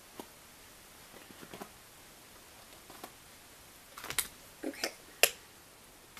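Faint ticks and rustles of a hairbrush being drawn through long hair, then a cluster of sharp clicks and knocks as the brush and hair product containers are handled, the loudest about five seconds in.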